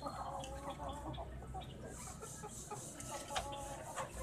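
Desi golden hens clucking, one drawn-out call in the first second, with two sharp taps near the end. A fast, pulsing high-pitched chirr starts about halfway through.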